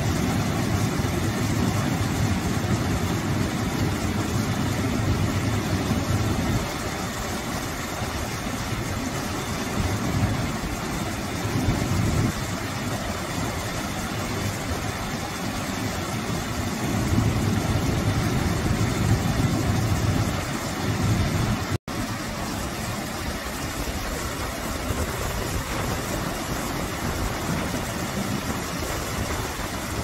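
Small waterfall pouring over a stone ledge into a pool: a steady rush of splashing water with a deep rumble underneath, swelling and easing a little. The sound drops out for an instant about two-thirds of the way through.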